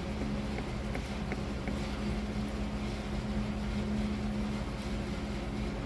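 Steady mechanical hum with one constant low tone, and a few faint ticks in the first two seconds.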